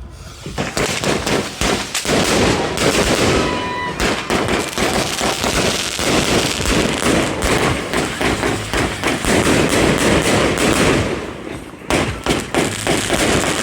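A 500-gram consumer firework cake firing, a rapid run of loud shots and crackling bursts that goes on for about ten seconds, dips briefly near the end, then picks up again.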